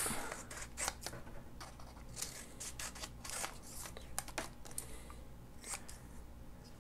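Scissors snipping through paper, cutting out a small shape: a run of short, irregular snips with light paper rustle.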